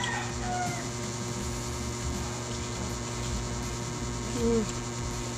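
Electric fan running with a steady hum. About four and a half seconds in comes a brief hummed 'mm' from one of the eaters.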